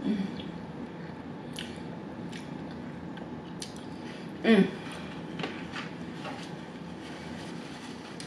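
A person chewing a mouthful of spaghetti, with soft wet mouth clicks and smacks. A short vocal sound falling in pitch comes about four and a half seconds in.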